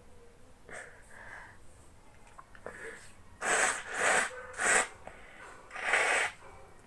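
Four short, sharp, sneeze-like bursts of breath through the nose, three in quick succession in the middle and one more near the end, with softer breaths before them.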